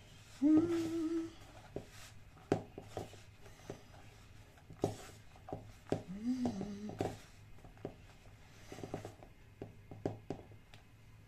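Hands squeezing and working a crumbly pestiño dough in a plastic bowl, giving soft irregular knocks and rustles. A woman hums two short notes, about half a second in and again around six seconds.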